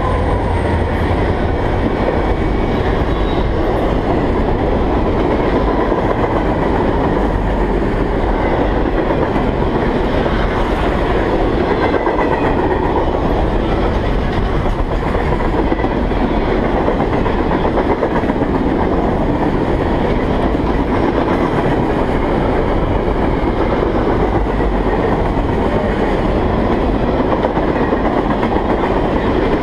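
A long freight train of loaded trash-container flatcars rolling past close by, with a second diesel locomotive going by first. The sound is a loud, steady rumble of steel wheels on the rails.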